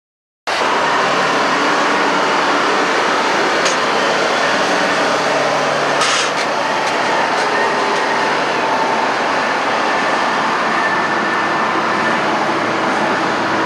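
Heavy log-yard machinery running steadily, a loud, even mechanical din that cuts in abruptly at the start, with a sharp clank about six seconds in.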